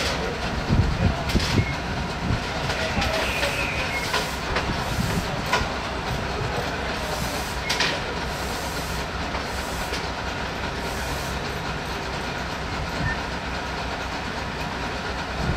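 Steady engine rumble from a rail maintenance car standing on the track, with a few sharp metallic clinks and knocks from work on the overhead contact wire.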